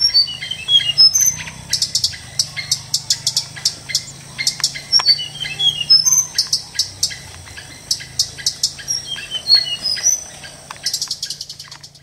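Flycatcher nestlings begging with high, sharp chirps, in rapid runs about 2 s, 6 s and 11 s in and scattered chirps between. A faint steady high tone runs underneath.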